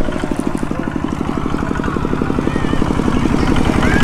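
A small vehicle engine running with a fast, even chugging beat, slowly getting louder.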